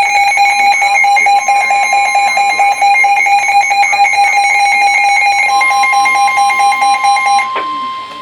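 Weather radio receivers sounding their alert alarm for an incoming warning: a loud, rapidly pulsing electronic alarm tone, joined about five and a half seconds in by a steady higher tone. The pulsing alarm cuts off shortly before the end while the steady tone carries on.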